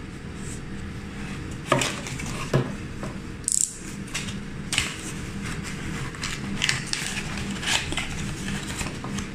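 A cardboard packaging sleeve being slid and pulled off a folded plastic camping jerrycan, with scraping, rustling and small knocks of cardboard and plastic against a wooden table. Two sharper knocks fall about a second and a half in and again a second later, and there is a brief scraping hiss near the middle.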